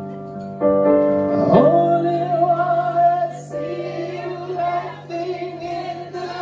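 A man singing in a high voice over sustained chords on a Yamaha electric stage keyboard, in a live performance. The chord changes just under a second in, and the voice comes in about a second and a half in with a long held note, followed by shorter sung phrases.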